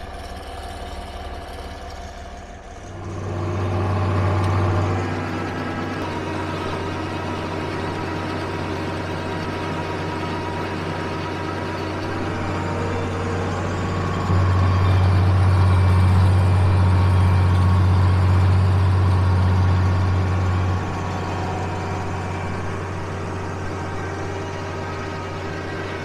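John Deere tractor engine running steadily with a deep hum while pulling a haybine mower. It grows louder about three seconds in, louder still around the middle, and eases back a few seconds before the end.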